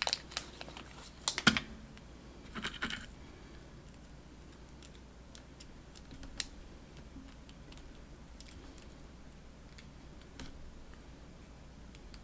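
Small metal clicks and taps of a padlock being worked with thin metal shims, a quick run of clicks in the first three seconds and then only sparse faint ticks.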